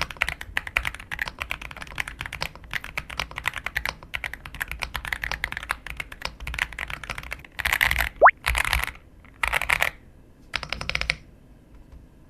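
Aula F75 mechanical keyboard being typed on fast, a rapid run of keystroke clicks. In the last few seconds the typing comes in four short, dense flurries, with a brief rising tone about eight seconds in, and stops about eleven seconds in.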